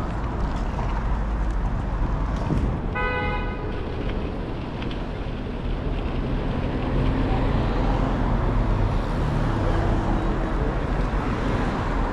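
City street traffic noise, with a short pitched horn toot about three seconds in and a vehicle's low engine rumble growing louder in the second half.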